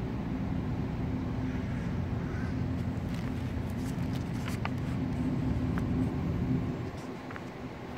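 Low, steady rumble of a motor vehicle engine that drops away about seven seconds in. A paper sheet and a plastic carrier bag rustle and crinkle as the sheet is flipped over between about three and five seconds in.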